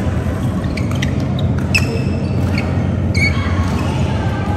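Badminton doubles rally: sharp racket-on-shuttlecock hits and short squeaks of court shoes on the mat, over a steady low hall rumble. Squeaks come about two seconds in and again near three seconds.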